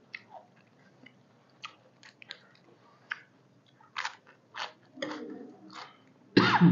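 Close-up chewing and crunching of food, a scattered run of short crisp bites such as fresh lettuce leaves being eaten. A louder burst comes just before the end.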